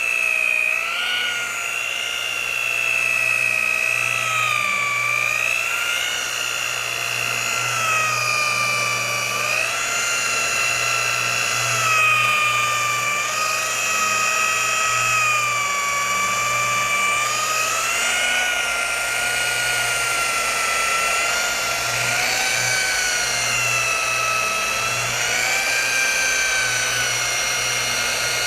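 Rotary polisher running steadily with a whine whose pitch drifts up and down every few seconds. It is polishing sanding marks out of single-stage car paint.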